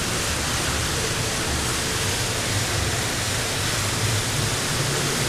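Steady rushing hiss of water with a low rumble, picked up by a camera held underwater in shallow surf.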